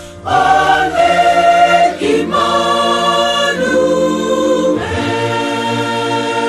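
Mixed choir of men and women singing a hymn in harmony, holding sustained chords that change about once a second, with a brief breath between phrases near the start.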